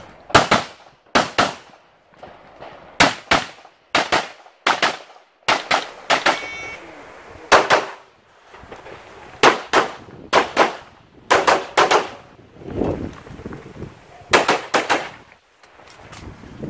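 Rapid pistol fire from an IPSC stage run with a CZ Shadow 2 handgun: sharp shots, mostly in quick pairs (double taps), about a dozen pairs with short gaps between them.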